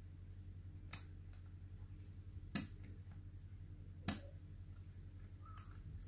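Three sharp little clicks, about a second and a half apart, from a hook pick nudging the pins of a high-security ASSA Ruko Combi Plus lock cylinder held under tension. A faint low hum runs underneath.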